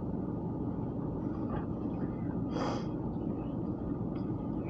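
Steady low rumble of outdoor background noise, with one short breathy hiss a little past halfway.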